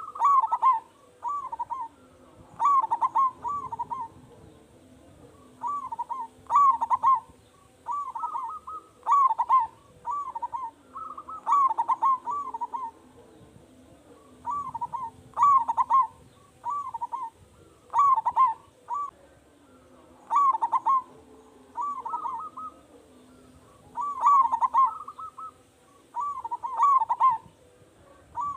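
Zebra dove (perkutut) cooing over and over in full song, each phrase a run of several quick, loud notes, repeated about every one to two seconds.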